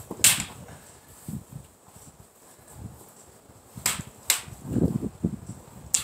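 Sparring weapons striking each other in sharp clacks: one shortly after the start, two close together about four seconds in, and one at the end, with low wind rumble on the microphone between.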